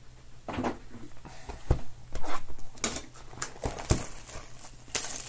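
Cardboard trading-card boxes in plastic shrink-wrap being handled and set down on a table: scattered knocks and taps mixed with crinkling of the wrap, over a steady low hum.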